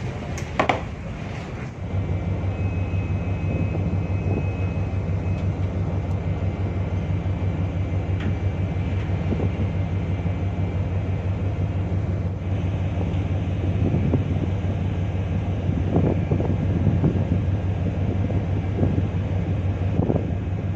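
A ship's engine running steadily with a low, even hum, heard on board with wind noise on the microphone.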